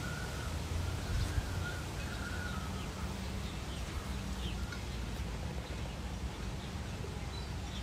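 Outdoor ambience: a few short, faint bird calls over a low steady hum.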